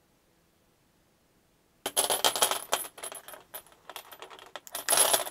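Steel chain clinking and rattling as it is handled on a tabletop, starting about two seconds in and ending with a second loud burst of rattling.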